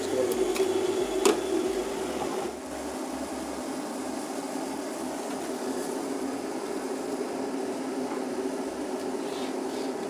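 Prestige PKOSS electric kettle heating water just short of the boil: a steady hiss and rumble, with two light clicks in the first second and a half.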